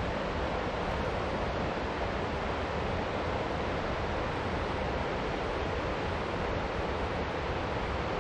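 Steady rush of a fast-flowing mountain creek, white water running over rocks.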